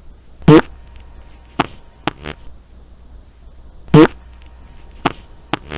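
Human fart recording: a loud, short, pitched blast followed by a couple of sharp small pops. The sequence is heard twice, about three and a half seconds apart.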